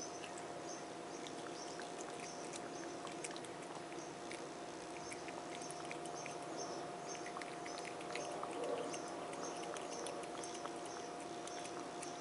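Cat eating wet food from a plate: small wet chewing and smacking clicks, coming irregularly. A faint steady hum runs underneath.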